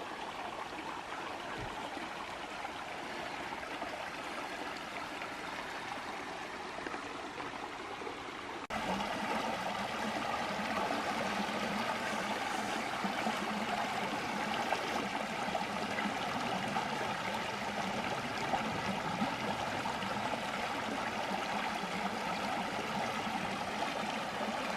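Creek water running steadily over small cascades. About a third of the way through it cuts abruptly to a louder, fuller rush.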